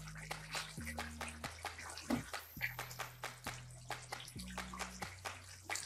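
Thick egusi soup simmering in a pot, with frequent small irregular pops and wet stirring from a wooden spatula.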